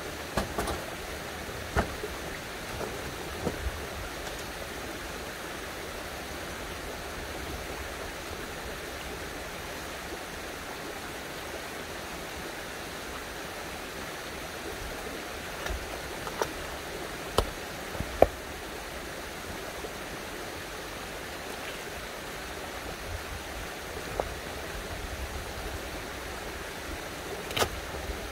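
Steady rush of running spring water, with a scattering of sharp knocks of stone on stone as rocks are stacked into a dry stone wall; the loudest knocks fall about two-thirds of the way through and just before the end.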